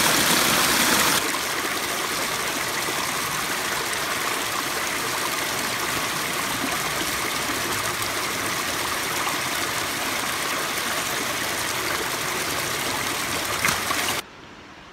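A small woodland creek running over rocks, a steady rushing splash. It is loudest for about the first second, at a little waterfall over a rock ledge, then drops to the even babble of the shallow stream, with one brief click near the end.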